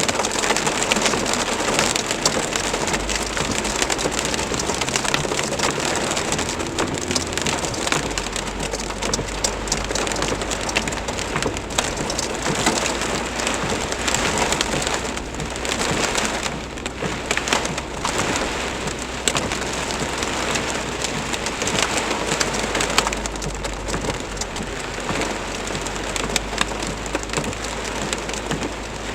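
Heavy rain mixed with hail pelting surfaces: a dense, steady patter of countless small hits.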